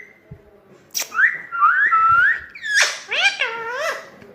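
Pet parrot whistling: a sharp chirp about a second in, then a few rising whistled notes, a quick falling sweep and a run of warbling calls near the end.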